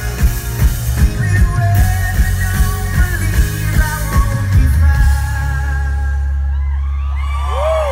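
Live rock band playing: a male lead vocal over drums and bass guitar. About five seconds in the beat stops and a final low chord rings out, and near the end the audience starts cheering and whistling.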